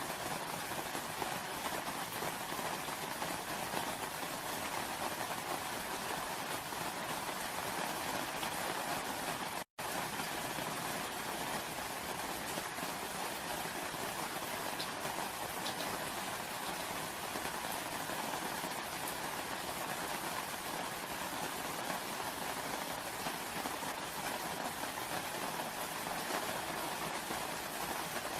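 Steady rain falling, an even continuous hiss of drops, with a split-second dropout in the sound about ten seconds in.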